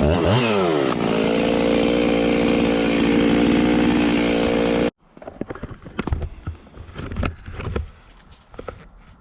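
Husqvarna chainsaw running at high revs while bucking a downed tree, its engine pitch dipping and climbing back about a second in. The saw sound stops abruptly about five seconds in, leaving quieter scattered knocks and handling sounds.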